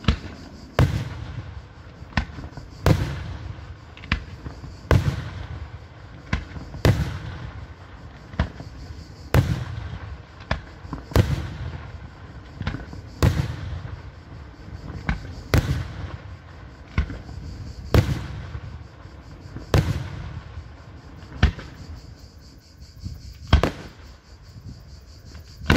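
Daytime fireworks: aerial shells bursting high overhead with sharp bangs, about one every second or two, each followed by a low rolling echo.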